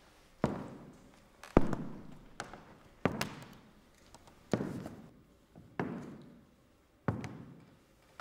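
Slow, heavy footsteps of hard-soled leather shoes on a wooden floor: six evenly spaced steps, about one every second and a quarter, each followed by a fading echo.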